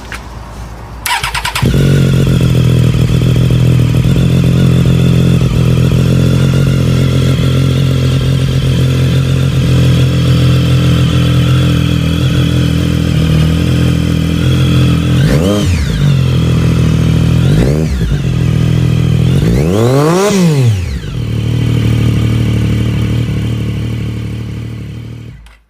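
A new motorcycle with an aftermarket Scorpion exhaust being started: a brief starter whine, then the engine catches and idles steadily. It is revved three times, the third blip the highest, then settles back to idle.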